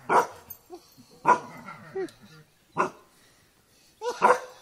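Dog barking sharply at a bison: about five barks roughly a second apart, the last a quick double.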